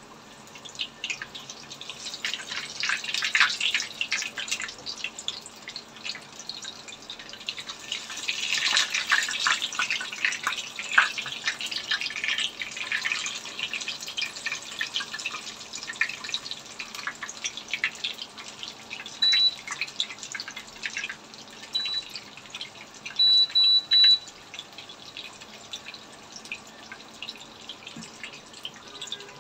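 Breaded chicken breasts shallow-frying in hot olive oil: a dense crackling sizzle, busiest in the first half and thinning later. About twenty seconds in come a few short, high electronic beeps.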